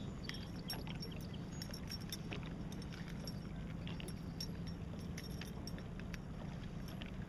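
Faint scattered clicks and clinks as a lure's hook is worked loose from a small northern pike's mouth, over a steady low hum.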